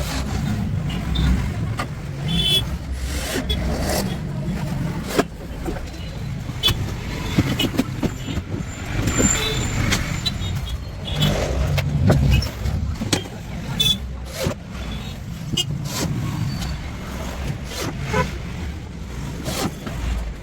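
Scattered clicks and knocks of hand work, fitting telescopic drawer slides to a wooden cash-counter drawer, over a steady low rumble.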